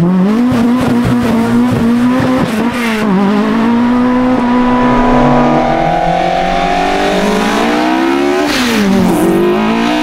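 Modified Mk2 Ford Escort with a Harris-built engine driving hard. The engine holds a steady note, climbs in pitch under acceleration, and drops sharply in pitch once near the end before picking up again.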